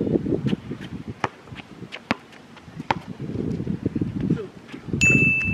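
Basketball bouncing on an outdoor hard court, a sharp knock about every second or less, with wind buffeting the microphone. Near the end a steady high beep starts.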